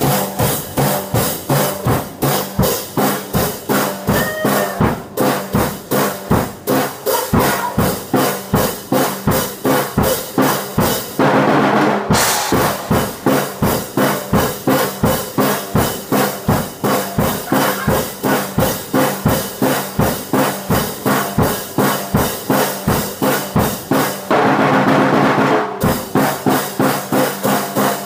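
Acoustic drum kit played in a steady beat of drum and cymbal hits, about three a second. Twice the playing turns into a busier stretch of fast rolls and ringing cymbals, a little before halfway and again near the end.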